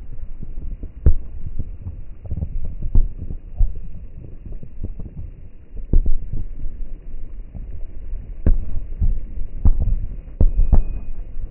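Fireworks going off: a dense, irregular run of bangs and booms over a steady low rumble, the sharpest cracks about a second in, around six seconds in, and in a cluster near the end.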